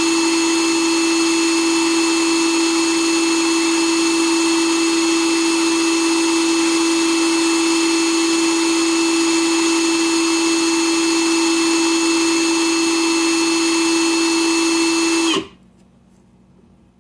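Electric motor of a power tool running at one steady speed with a constant whine. About fifteen seconds in it switches off and the pitch drops briefly as it spins down.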